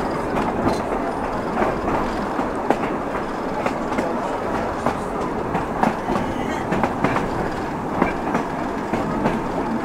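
Tramcar running along the track, heard from on board: a steady rumble of wheels on rail, with irregular clicks and knocks as the wheels pass over the rail joints.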